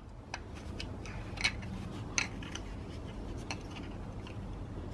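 Scattered light clicks and scrapes of a thin metal tool prying at the cap over an idler pulley's bolt, the tool catching and slipping at irregular intervals. The louder clicks come about a second and a half and about two seconds in.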